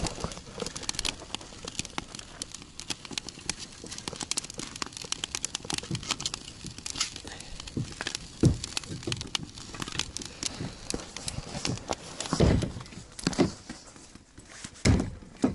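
Freshly lit wood fire crackling in a fire stand made from a car wheel rim, with dense small pops and snaps. A few dull knocks stand out, about halfway through and near the end.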